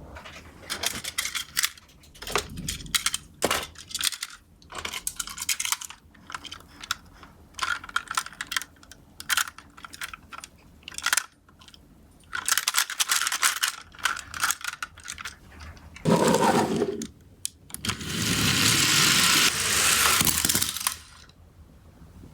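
Small die-cast toy cars clinking and rattling against each other and the box in a series of short clatters, with a longer steady rush of toy wheels rolling near the end.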